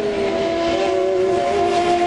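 IndyCar's twin-turbo V6 engine running at high, steady revs, its whining note holding nearly level with a slight fall in pitch, over a hiss of spray from wet track.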